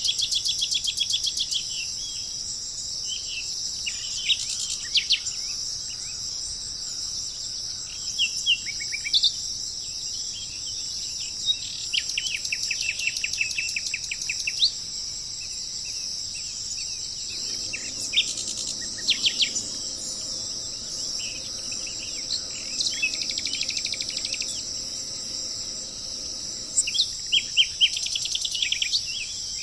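Steady high insect chorus with birds calling over it: fast trills of rapidly repeated notes and scattered sharp call notes.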